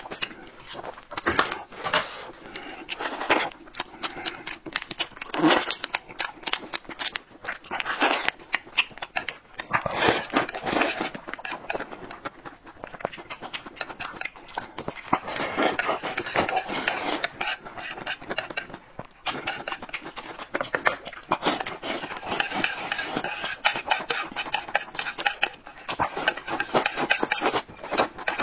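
Close-up mukbang eating sounds: noodles slurped and sucked from the edge of a plate, with chopsticks clicking and scraping on the plate, and small plastic snack wrappers being torn open and crinkled.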